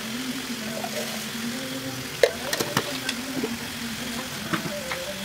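Blended chili paste sizzling as it fries in a wok, with a steady hiss over a low hum. A few sharp clicks, most likely a utensil against the pan, come from about two seconds in.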